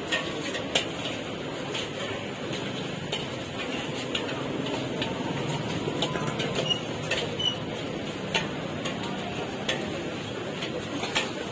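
Busy market-stall ambience: a steady background of voices and noise, with scattered light clicks and clinks of utensils.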